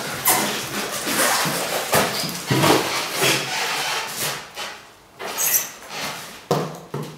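Polystyrene packing peanuts rustling and cardboard boxes rubbing and scraping as a boxed RC truck is lifted out of a shipping carton, in a run of uneven bursts.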